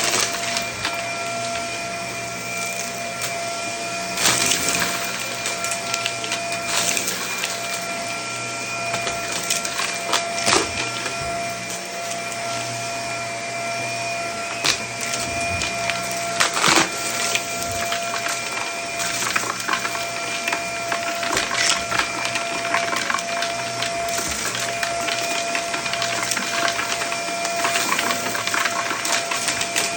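Vacuum cleaner running with a steady whine while sucking up crunchy debris. There is constant crackling and rattling as bits are pulled into the nozzle, with a few louder sharp cracks scattered through.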